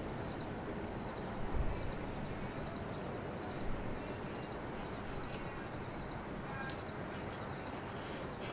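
Steady low rumble of a train passing some way off, over open-air background noise, with faint high chirping repeating throughout.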